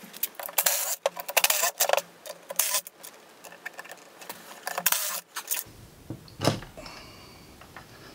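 Makita cordless impact driver hammering out bolts from an aluminium battery case in several short bursts over the first five seconds, then a sharp knock.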